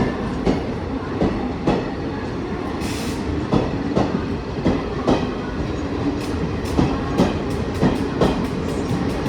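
Passenger express train coaches rolling past, a steady rumble with the regular clickety-clack of wheels over rail joints, the clacks coming quicker toward the end as the train gathers speed.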